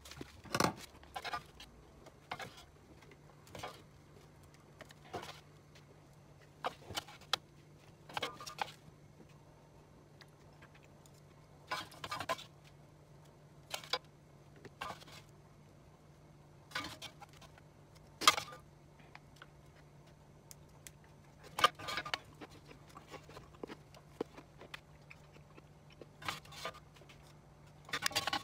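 Chopsticks and a spoon clicking and scraping against an air fryer basket and glass food containers as food is portioned out: scattered light taps every second or two, over a faint steady hum.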